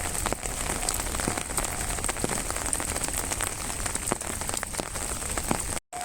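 Steady rain with many drops tapping sharply on an umbrella held over the microphone. The sound cuts out abruptly for a moment near the end.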